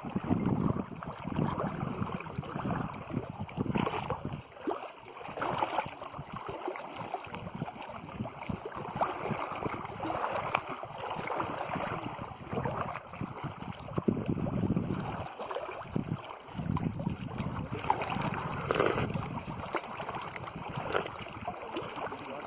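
Wind on the microphone and lapping lake water, an uneven noise that swells and fades every second or two.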